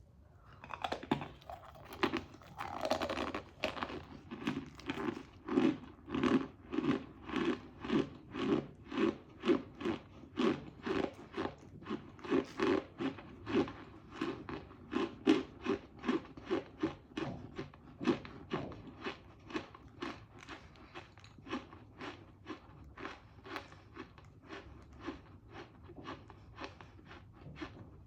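A person biting into crunchy chunks of cornstarch and chewing close to the microphone, about two crunching chews a second, growing softer in the last third.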